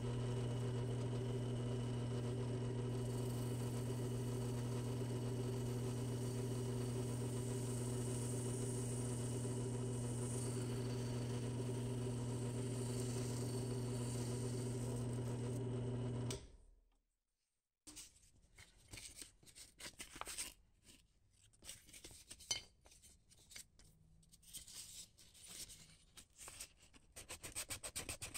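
A steady machine hum runs for about sixteen seconds, then winds down and stops. Small scratching and handling sounds follow, and near the end a fast, even scrubbing begins.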